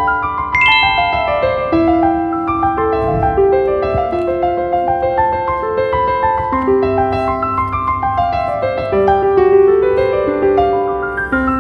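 Background piano music, a melody of single notes moving step by step over an accompaniment.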